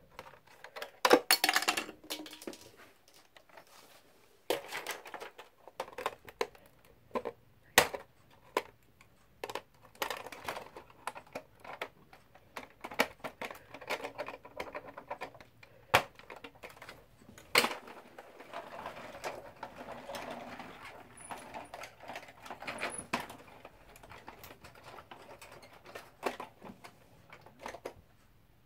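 Irregular clicks, knocks and rattles of a hard plastic Bruder John Deere 7930 toy tractor being handled, its parts moved and set down, with the loudest clatter about a second in.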